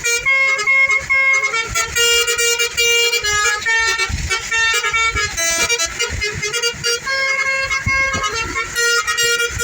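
Indonesian "telolet" multi-tone bus horn playing a tune, its notes stepping from pitch to pitch without a break.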